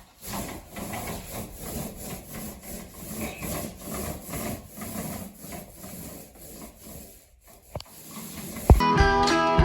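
Repeated rubbing and scraping strokes, a few a second, for about seven seconds; near the end acoustic guitar music comes in.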